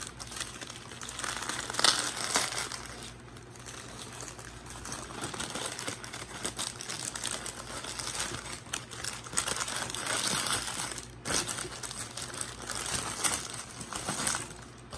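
Paper sandwich wrapper crinkling and rustling as it is unfolded by hand from a sub sandwich, with a few louder crackles along the way.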